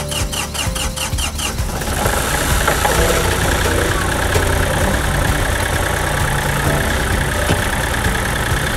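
Background music with a steady beat ending about two seconds in. A Kioti compact tractor's diesel engine then runs steadily.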